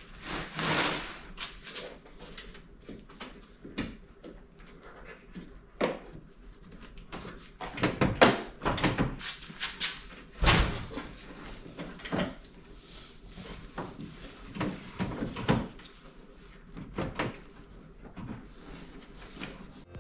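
Irregular clicks, knocks and rattles of hands and tools working a car's plastic headlight assembly loose, with a few louder knocks past the middle.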